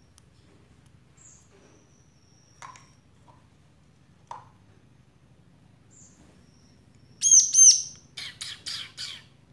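Juvenile bar-winged prinia calling while held in the hand for feeding: two loud arching chirps about seven seconds in, then four quick buzzy notes.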